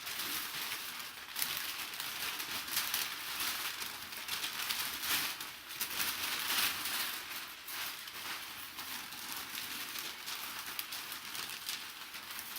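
Packaging rustling and crinkling as an item is handled and pulled out of a memorabilia box, a steady run of irregular crackles with no pauses.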